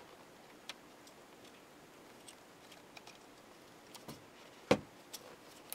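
Small plastic clicks and taps as the camcorder's outer shell is handled and worked onto the body, with one much louder sharp click near the end.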